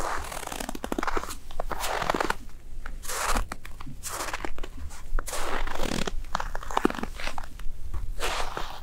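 Frozen snow crunching under boots in slow, shuffling steps, a crackly crunch roughly every second.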